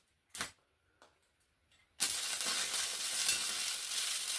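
A couple of light knocks, then about two seconds in an electric welding arc strikes on a steel exhaust flange and runs with a steady crackling sizzle.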